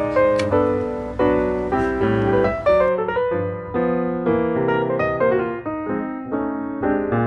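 Background piano music: a steady run of notes, each struck and fading.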